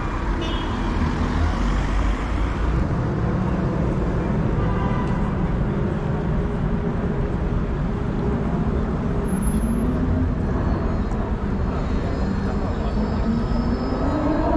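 City street traffic: cars driving past on the road, a steady traffic noise with an engine note rising in pitch near the end.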